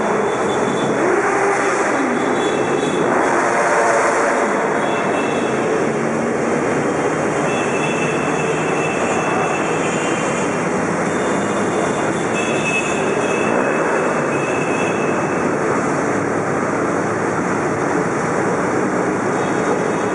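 A dense stream of motorcycles riding past inside a road tunnel, their many engines blending into one steady, loud din, with now and then a single engine revving up and down.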